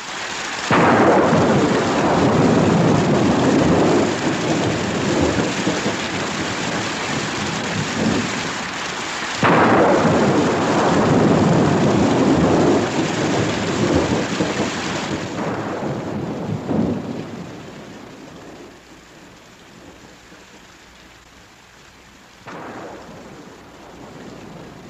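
Thunderstorm: a sudden, heavy thunderclap about a second in and another about ten seconds in, each rumbling on for several seconds over steady rain. The thunder then dies away, leaving the rain and a short, fainter rumble near the end.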